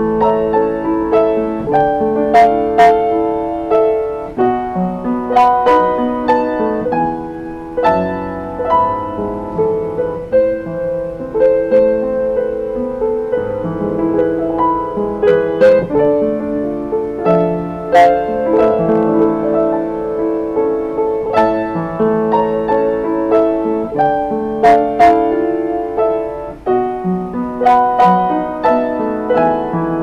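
Yamaha YU1C upright piano played with both hands: a continuous flowing passage of chords and melody, mostly in the middle of the keyboard.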